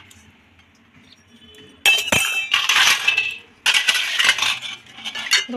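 Brass and bell-metal puja utensils clinking and scraping against one another and the large metal bowl as they are handled and set down. There are two spells of clatter with short metallic ringing, starting about two seconds in.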